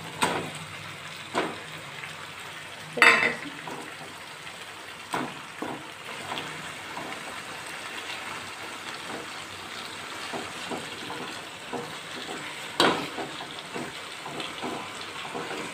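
Masala gravy sizzling and bubbling in a wok as fried fish pieces are tipped in and stirred, with utensils knocking against the pan a few times, loudest about three seconds in and again near the end.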